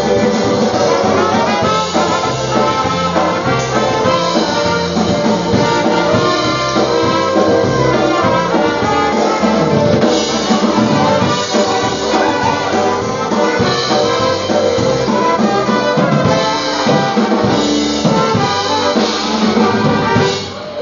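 Live polka band playing a dance tune, with brass horns led by trumpet over a bouncing bass line and drum kit. The music drops briefly near the end.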